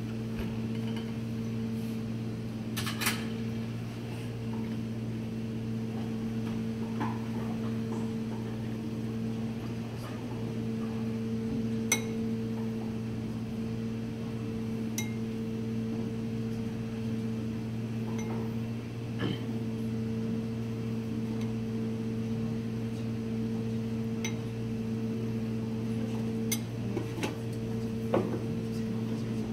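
Steady low electrical hum of kitchen equipment, with a few light taps and clicks of a spoon and knife on a plastic cutting board as ravioli filling is set out on a fresh pasta sheet.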